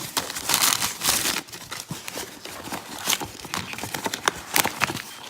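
Cardboard shipping box being torn open by hand: crinkling and tearing of box and packing material, loudest in the first second and a half, then scattered clicks and rustles.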